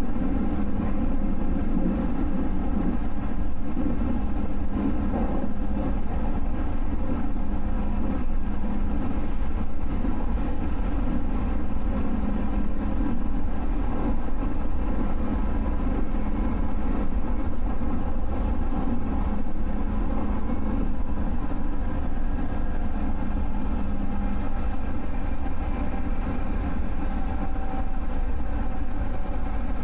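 Electric train running along the track, heard from inside the passenger car: a steady low rumble of wheels on rail with a faint steady hum that fades near the end.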